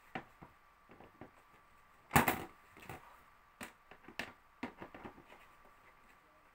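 Grey plastic grille door of a Trixie Capri 1 pet carrier being fitted into the carrier's front opening: a series of light plastic clicks and knocks, the loudest about two seconds in.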